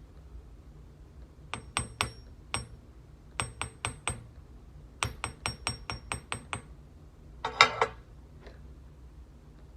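A series of about fourteen sharp, light metallic clicks with a brief ringing tone, irregularly spaced over about five seconds, then a louder rattling clatter of about half a second near the end.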